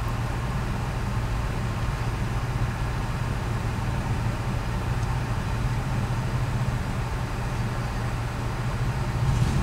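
Car engine idling while stopped, heard from inside the cabin as a steady low hum.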